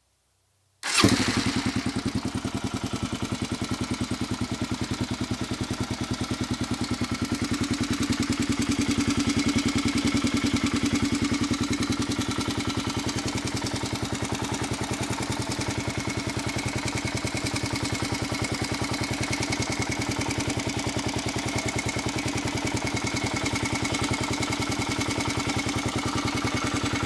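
1997 Kawasaki KLR650's single-cylinder engine running steadily at idle with a ticking noise, its valve clearances just set to the large end of spec. The sound starts suddenly about a second in.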